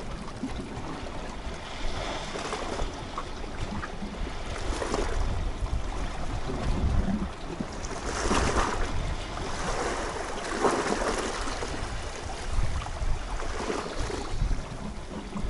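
Small sea waves washing against shoreline rocks, with wind rumbling on the microphone; the wash swells up several times.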